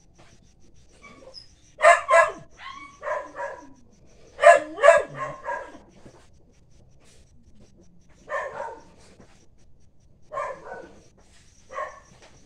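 A dog barking in short bursts: two quick double barks in the first half, then single barks every couple of seconds.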